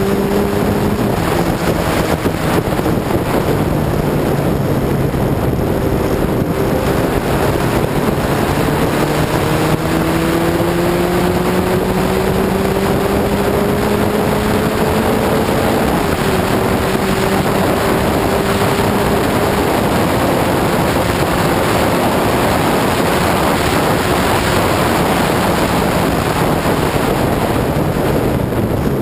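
Lotus 61 Formula Ford race car's Ford Kent four-cylinder engine running hard under racing load, its pitch climbing slowly through the gears, with a sharp drop about a second in and another about 16 seconds in as it shifts up, and falling pitch near the end. Heavy wind rush mixes with the engine.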